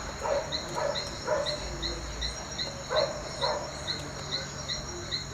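Outdoor insect chorus: a steady high drone with an evenly repeated chirp about two to three times a second. Over it come a few short, lower sounds, about five in all, mostly in the first second and a half and around three seconds in.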